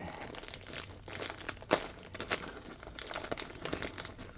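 Paper and plastic mail packaging being handled and torn open: irregular crinkling and crackling, with one sharper snap near the middle.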